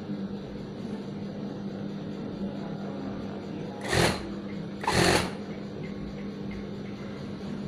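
Industrial sewing machine's motor humming steadily between seams, with two short bursts of stitching about four and five seconds in.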